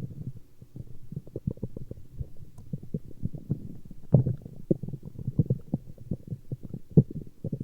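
A human stomach growling and gurgling in a fast, uneven run of low bubbling pops and rumbles, loudest about four seconds in and again near seven seconds.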